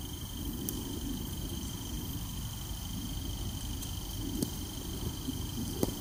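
A steady high insect trill over a low rumble of wind on the microphone, with a couple of soft knocks in the last two seconds.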